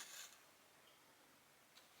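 Faint rasp of cotton thread being drawn through cross-stitch fabric at the very start, then a soft tick near the end; otherwise near silence.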